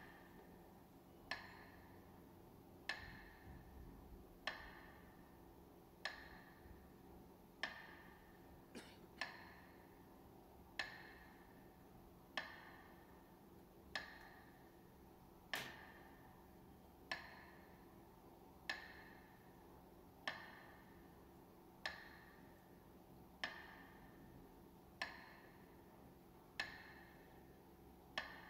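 A metronome ticking slowly and evenly, about one stroke every second and a half, each tick ringing briefly: the beat that marks the Russian minute of silence.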